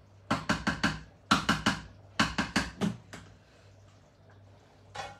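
Rapid sharp knocking in three quick runs of four or five strikes each, about six a second, with a single knock near the end.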